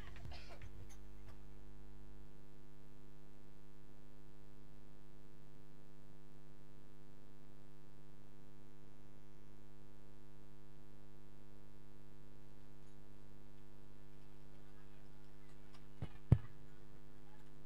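Steady electrical mains hum from the stage sound system, with one sharp knock near the end.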